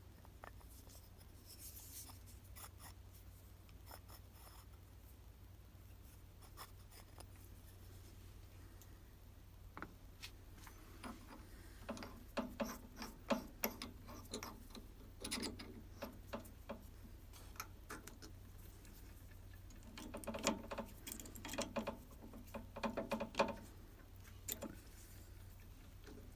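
Hand tools and parts being handled and worked at a bench: scattered clicks, taps and scraping, coming in two busier stretches, over a steady low hum.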